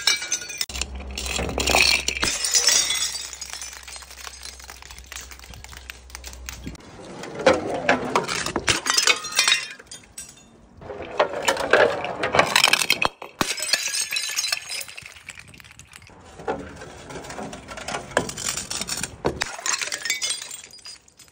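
Glass bottles and jars smashing on stone steps, shattering with a crash and then shards clinking and scattering, in several separate bouts.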